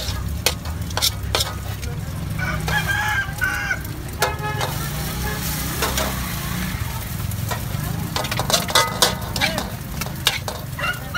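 Metal spatula scraping and clanking against a steel wok as fried noodles are stirred and scooped, with frying sizzle, over a steady low rumble.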